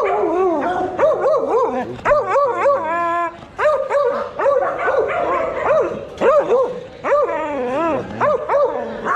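Kennelled dogs barking and yelping over and over, several calls a second, with a short held whine about three seconds in.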